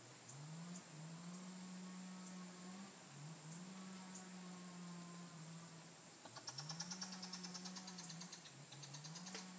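A distant motor's low drone rising in pitch, holding and dipping again about four times, over a steady high hiss of rainforest insects. About two-thirds of the way through, a rapid even trill of pulses joins in for a few seconds.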